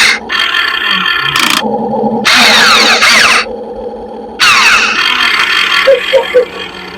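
RC model excavator's motors working in repeated bursts of about a second: a whirring mechanical noise with pitch sliding up and down, starting and stopping several times as the machine is operated.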